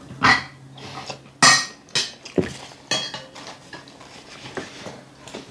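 Spoons and forks clinking and scraping on dinner plates during a meal, with a handful of sharp clinks in the first three seconds, the loudest about one and a half seconds in.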